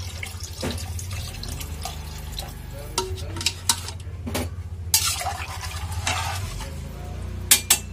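Steel spoon stirring rice and watery broth in an aluminium pot, with intermittent scrapes and clinks of metal on the pot, the sharpest near the end. A steady low hum runs underneath.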